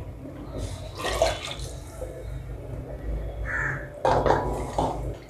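Wooden spatula stirring freshly added water into a thick tomato curry in an aluminium pot, the liquid sloshing and the spatula scraping the pot, loudest from about four seconds in. A bird calls once about two thirds of the way through.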